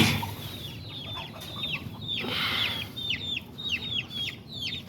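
Birds chirping: a steady stream of short, high, falling chirps, several a second. A sharp knock comes right at the start, and there is a brief rustle in the middle.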